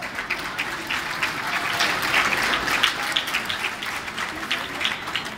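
Audience applauding. The clapping swells to its loudest about halfway through, then dies away near the end.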